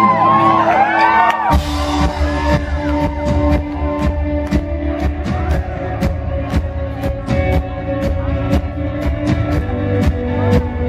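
Live rock band playing in a hall: a sung vocal line over sustained chords, then the full band with bass and a steady drum beat comes in hard about a second and a half in.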